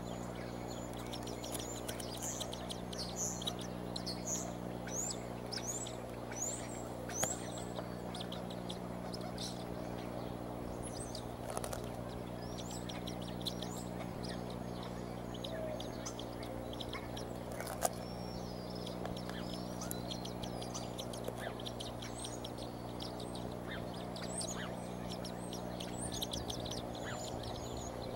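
High-pitched chirping and chittering calls of eagles at the nest, with a quick series of short falling notes a few seconds in and scattered chirps after. A steady low hum runs underneath, and two sharp clicks are heard, the louder one past the middle.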